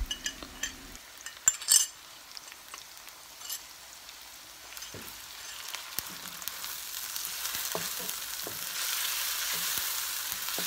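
Marinated chicken strips frying in hot oil with chopped onion and garlic in a nonstick frying pan, stirred with a wooden spatula. A few clicks of utensils come in the first two seconds, and the sizzle grows steadily louder toward the end as the pan heats up.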